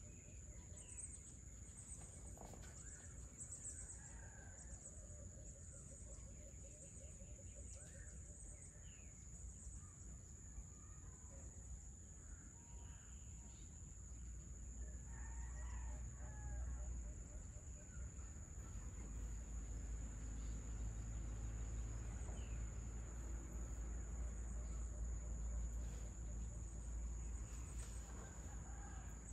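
Tropical evening ambience: a steady high insect trill with scattered bird calls and a rooster crowing, over a low rumble that grows louder in the second half.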